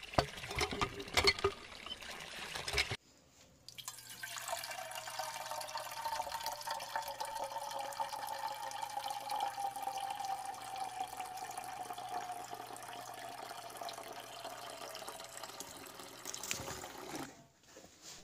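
Water splashing in short irregular gushes for the first few seconds as a miniature toy hand pump is worked. After a brief break it becomes a steady trickle running down a small channel into a pond, with a faint tone that slowly falls in pitch.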